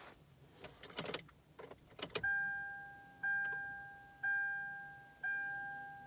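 A few clicks as the ignition key is turned, then the car's dashboard warning chime ringing about once a second, each chime fading out.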